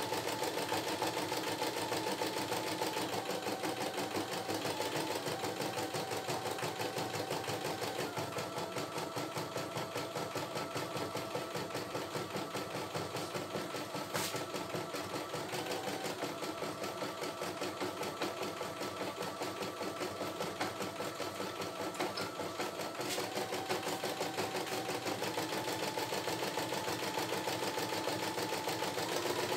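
CNY E960 computerized embroidery machine stitching a design: the needle runs in a fast, even rhythm while the hoop moves, over a steady motor whine that changes pitch a few times. A single sharp click about halfway through.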